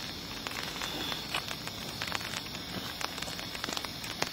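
Rain falling on pavement: a steady hiss with many scattered, irregular drop clicks.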